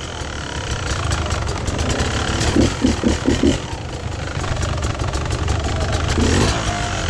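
Off-road motorcycle engine running under throttle while riding rough, wet ground, with frequent knocks and rattles from the bike over the terrain.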